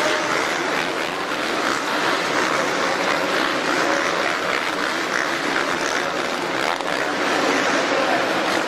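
Motocross bikes racing on a supercross track, several engines revving and overlapping into a steady din.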